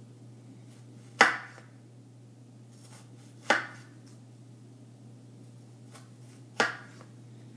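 Chef's knife cutting down through a halved onion and knocking on a wooden cutting board three times, a couple of seconds apart, each a single sharp knock.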